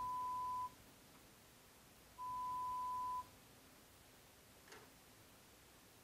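Pure-tone audiometer test beeps at 1000 Hz: one steady tone ends within the first second, and a second tone lasting about a second comes about two seconds in. These are the stimuli of a pure-tone hearing threshold test.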